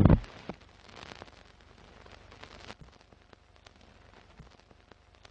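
A sudden loud boom-like hit that dies away within about half a second, followed by faint crackling with scattered clicks.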